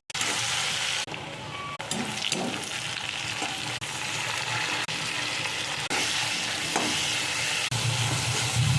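Food frying in hot oil in a pan, with a steady sizzle and occasional clicks of a utensil stirring. A louder low hum comes in near the end.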